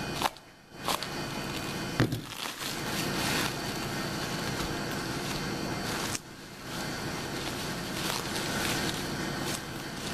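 Bubble wrap crinkling and rustling as it is handled, with a sharp knock about two seconds in.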